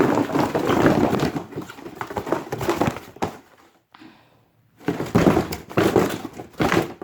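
Cardboard box being crushed and torn as a hammer stuck in it is wrenched at: crumpling, rustling and knocks, in two bouts with a pause of about a second and a half after about three seconds.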